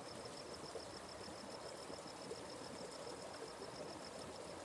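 Faint steady rush of a forest stream, with an insect calling in a fast, even train of high-pitched pulses over it.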